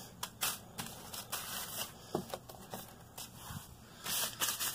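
Rustling and rubbing handling noise in short hissy bursts, a few a second, louder near the end.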